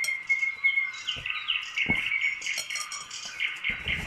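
Small birds chirping and twittering over and over, with a steady whistled note through the first second. A few soft knocks are also heard.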